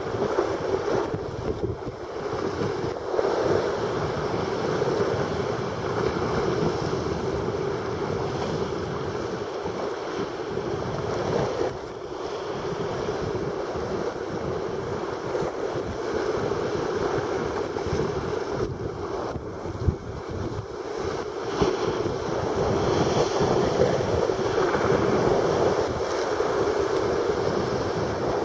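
Choppy sea waves surging and splashing against a stone harbour wall, a steady wash of surf with wind buffeting the microphone.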